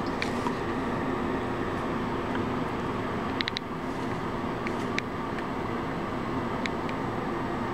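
Ceiling-mounted bathroom exhaust fan running steadily: a constant whir with a steady low hum. A few light ticks sound about halfway through.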